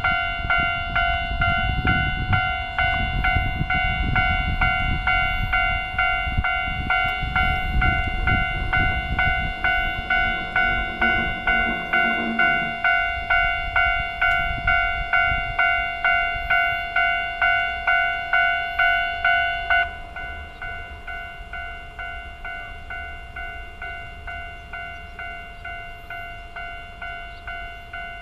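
Japanese level-crossing alarm bell ringing its 'kan kan' at an even beat of about two strokes a second while an electric train rumbles past; the train's rumble fades out a little under halfway. About two-thirds of the way in the bell drops suddenly to a quieter level and keeps ringing.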